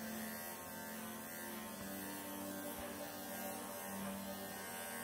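Cordless Bravura pet clippers running with a steady, quiet hum as the blade clips through a Persian cat's matted, pelted coat.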